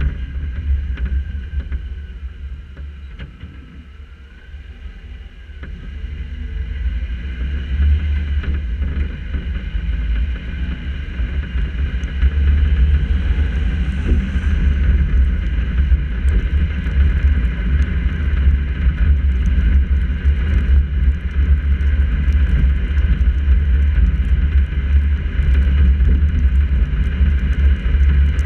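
Steady low rumble of a moving car heard by a camera on its hood: wind and road noise through the camera housing. It dips briefly a few seconds in, then builds and stays loud from about twelve seconds in.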